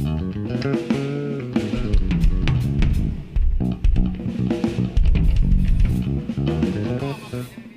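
A live band playing an instrumental passage of a pop song: guitar over bass guitar and drum kit, with no singing.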